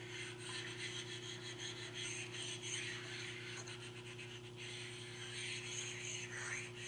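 Sharpening stone scraping back and forth over the steel magnetic chuck of a Taft Peirce surface grinder, stoning the chuck face to knock off burrs.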